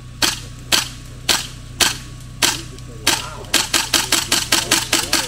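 Rifle fired in six single shots about half a second apart, then a fast string of about ten shots at roughly five or six a second.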